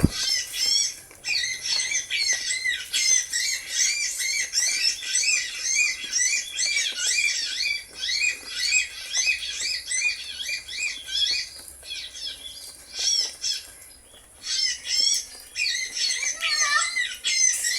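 Small birds chirping in fast runs of short, high, sharp notes, with brief pauses about a second in and again near the three-quarter mark.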